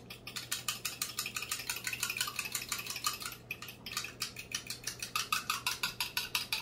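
A fork beating an egg-and-milk batter in a glass measuring cup: quick, even strokes of the tines clicking against the glass, about five or six a second, with a brief pause about three and a half seconds in.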